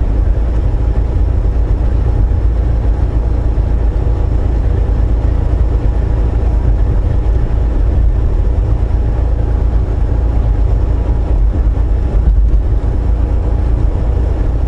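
Steady low rumble of a Volvo VNL860 semi truck driving on the highway, engine and road noise heard from inside the cab.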